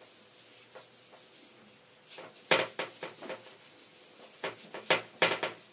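Short rubbing strokes on a small whiteboard, about ten of them starting a couple of seconds in, several coming in quick pairs.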